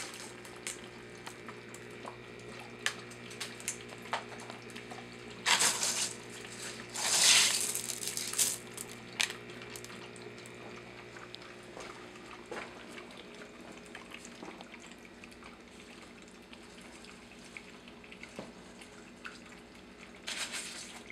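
Water bubbling up an airlift pipe driven by a small aquarium air pump and trickling steadily out into a gravel grow bed, over the pump's low steady hum. A few louder rushes of noise come about five to eight seconds in and again near the end.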